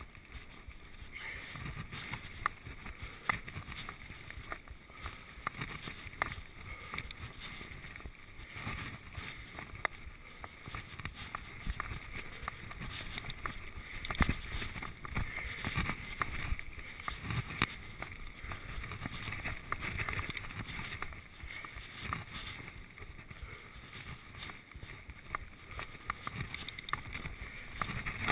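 Giant Trance 1 full-suspension mountain bike ridden over a rough dirt-and-grass trail: a steady low rumble of knobby tyres and wind on the camera, broken by frequent sharp knocks and rattles from the bike over bumps and rocks.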